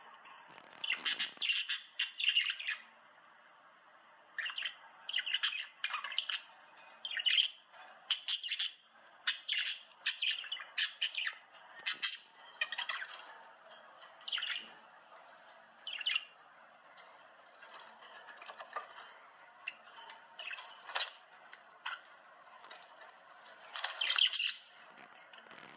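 A bird calling over and over in short, high calls, in irregular bursts with brief pauses between them.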